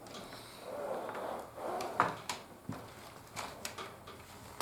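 Plastic Technic-style building parts being handled and pressed together: soft rustling, then several small sharp clicks from about two seconds in as connector pins are forced into place.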